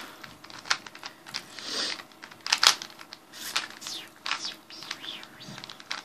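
Plastic 3x3 Rubik's cube being turned by hand: irregular clicks and scrapes as the layers are twisted.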